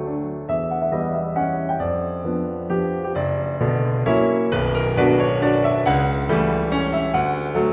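Background piano music: a gentle melody with chords.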